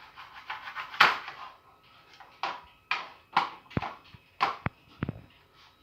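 A fork or whisk beating eggs in a bowl: irregular clinks and knocks against the bowl. They come quickly at first, then slow to about two a second.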